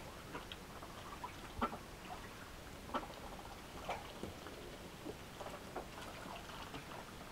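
A mallard drake's webbed feet tapping and scuffing on a plastic deck. There are scattered soft taps, with three louder ones about one and a half, three and four seconds in.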